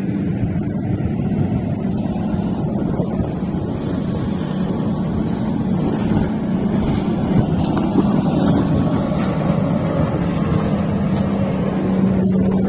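Powerboat engine running steadily with a continuous hum, getting slightly louder.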